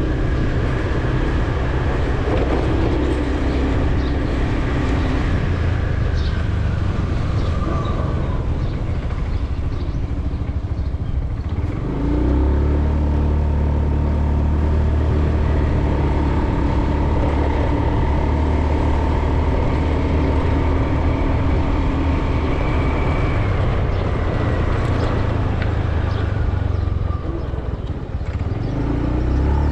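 Motor vehicle on the move: steady engine hum and road noise, growing heavier about twelve seconds in and easing briefly near the end.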